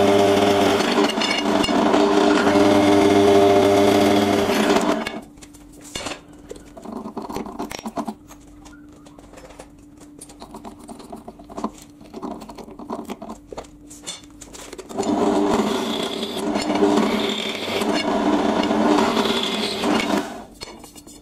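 Pillar drill boring through a flat metal bar, a loud steady machine sound for the first four or five seconds and again from about fifteen to twenty seconds. Between the two cuts the drill runs on more quietly with no load, with a few clicks and knocks.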